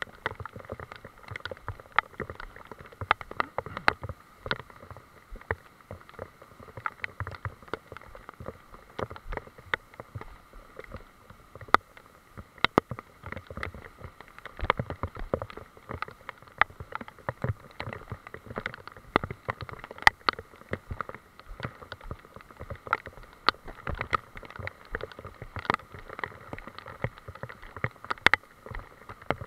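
Rain in a forest: many irregular ticks and taps of drops striking the camera and wet leaves, over a steady hiss.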